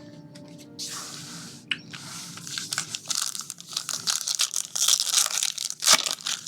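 Trading card pack wrapper being torn open and crinkled: a smooth tearing rip about a second in, then a long run of crackling crinkles, the loudest near the end.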